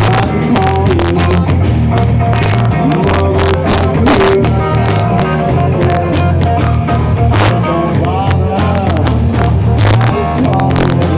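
Live rock band playing loud through amplifiers: electric guitars with sustained, bending lead notes over bass guitar and steady drum hits.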